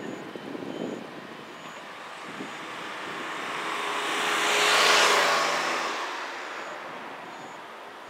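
A road vehicle passing by: its noise swells gradually to a peak about five seconds in, then fades away.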